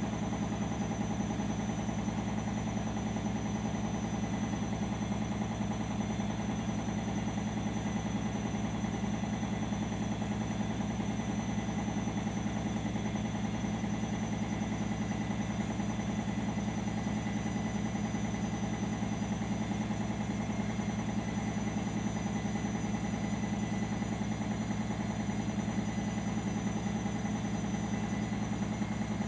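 Arçelik 5083 front-loading washing machine spinning steadily in its final spin, set to 800 rpm: an even motor and drum hum.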